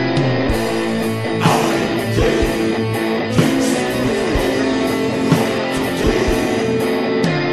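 Doom metal song: slow, held guitar chords with sparse drum hits and cymbal crashes.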